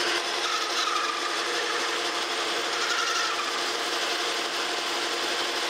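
Metal lathe running as a parting tool cuts through spinning hex bar stock to part off a jam nut: a steady rasping cutting noise over the lathe's hum, with a faint higher whine that comes and goes twice.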